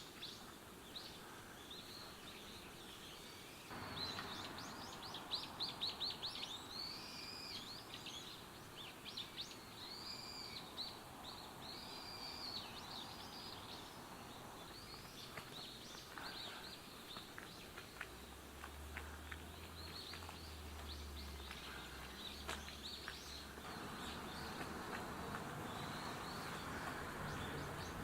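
Small songbirds singing and calling, with quick runs of short, arched high notes that are busiest in the first half, over a steady background hiss. A faint low hum comes in for a few seconds past the middle.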